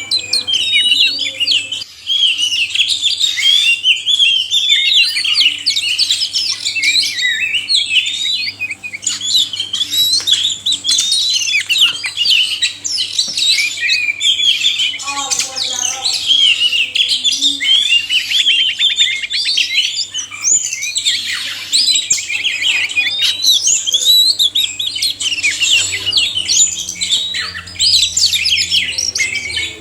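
Male and female Oriental magpie-robins singing together, a dense overlapping stream of varied whistles, chirps and trills that never pauses.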